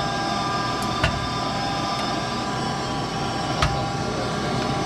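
Gas furnace running after being fired up: a steady mechanical hum with several steady tones, with two sharp knocks, about a second in and near three and a half seconds.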